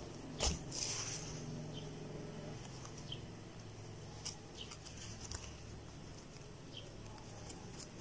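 Faint handling sounds from working a yarn tail in with a sewing needle between a crochet panel and its canvas backing: a sharp click about half a second in, a short hiss, then scattered light ticks and rustles.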